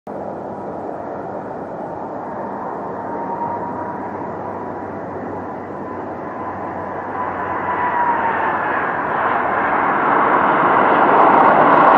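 Jet engines of a landing Air Transat Airbus A330 twinjet: a steady rushing noise with a thin whine that dips in pitch about seven seconds in, around touchdown, then the noise grows louder as the plane rolls out along the runway.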